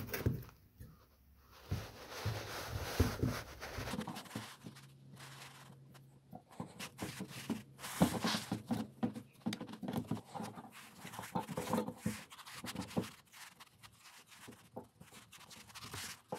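Hand-work noise from fitting parts back into an air-brake tractor protection valve: irregular small clicks, taps and scrapes of metal parts and a tool, with nitrile gloves rubbing.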